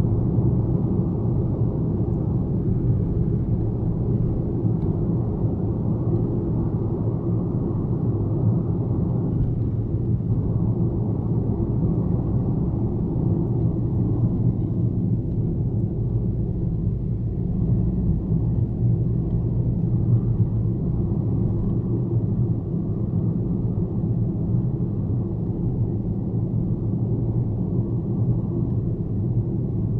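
Car driving steadily on a highway: an even, low engine and road rumble that holds at the same level without gear changes or passing events.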